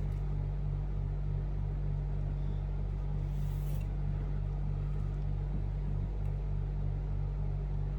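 A steady low background hum with a faint pulse a few times a second, and a short hiss about three and a half seconds in.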